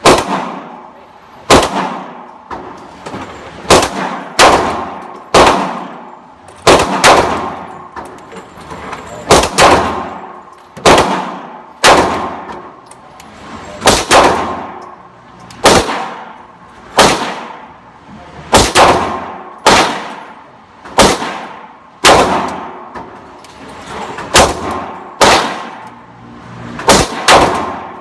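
Gunshots fired in a steady string, about one a second with the odd quick pair, each crack followed by a ringing tail.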